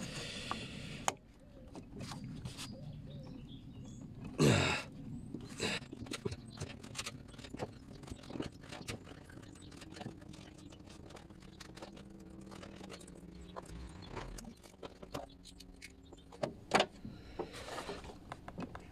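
Hand work on a silicone boost hose in an engine bay: scattered clicks, knocks and rubbing as the hose is worked onto its pipe. There is a louder, longer noise about four and a half seconds in.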